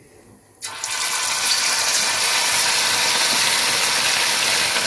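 Marinated, paste-coated chicken pieces deep-frying in hot oil in a wide uruli pan. The sizzle breaks out suddenly about half a second in as the pieces go into the oil, then runs on as a steady, dense frying hiss.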